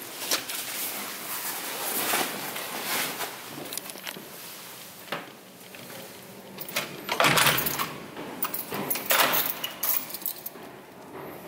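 Handling noises of a backpack being moved, rustling with scattered clicks and knocks, then a bunch of keys jangling; the loudest jingles come about seven and nine seconds in.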